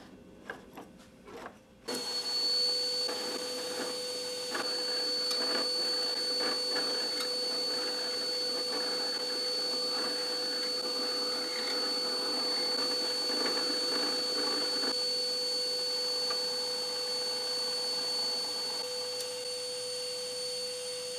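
Drill press motor switched on about two seconds in and running steadily, with the rougher grinding of a small Forstner bit boring into a wooden block through much of the middle stretch.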